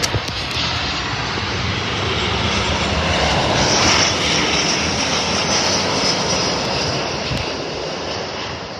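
Jet airliner landing, passing low overhead: a broad engine rush swells to its loudest about four seconds in, with a high fan whine, then slowly fades.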